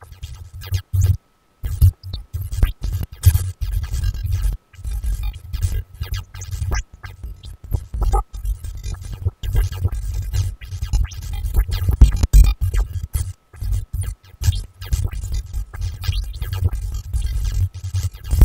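Generative electronic noise music computed live from a Mandelbox fractal algorithm, with no samples or conventional synthesis: dense, glitchy crackles and stutters over a heavy low rumble. It breaks off into brief silent gaps, the longest about a second in.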